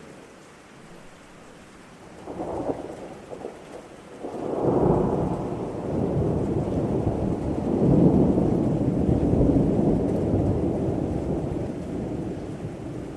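Thunder rolling over steady rain: a first crackle about two seconds in, then a long low rumble from about four seconds in that swells twice and slowly fades near the end.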